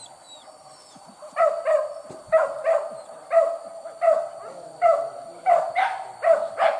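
Hunting dog barking over and over during a wild boar chase, the bay of a dog on the boar's trail. The barks start about a second and a half in and come two to three a second, faster toward the end.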